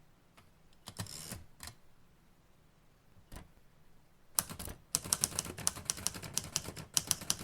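A few scattered clicks and handling noises, then about four seconds in rapid typing on a typewriter starts: a quick run of sharp key strikes, several a second.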